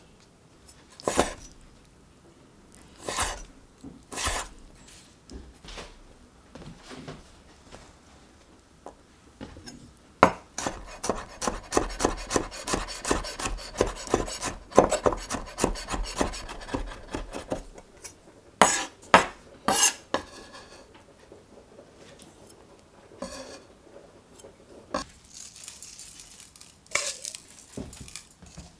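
Kitchen prep sounds: a fork clicking against a glass jar as sun-dried tomatoes are lifted out. Then a chef's knife finely chops garlic and sun-dried tomato on a wooden board, several quick strokes a second for about eight seconds, followed by a few louder knocks and scattered light clinks.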